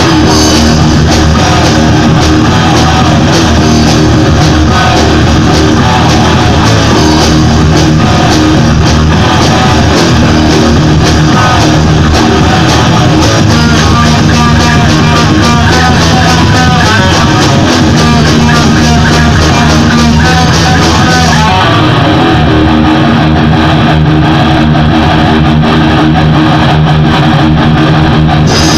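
Live rock jam on two guitars and a drum kit, played loud. About three-quarters of the way through the cymbals fall away, and they come back in just before the end.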